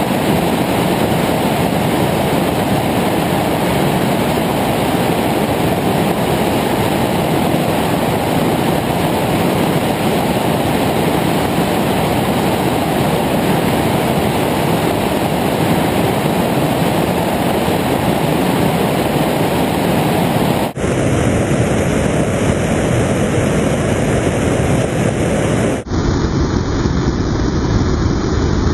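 Steady, loud rushing noise of a plane in flight: airflow and engine blended into one even roar with no distinct engine note. It dips for an instant twice near the end.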